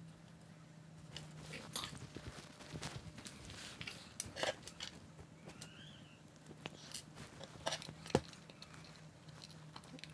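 Light clicks and taps of small metal parts and tools being handled on a wooden workbench as pulleys are fitted to motor shafts, with a sharper knock about eight seconds in. A low steady hum runs underneath.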